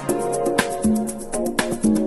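Background music: a sparse piece of held and plucked notes over quick, light ticking percussion.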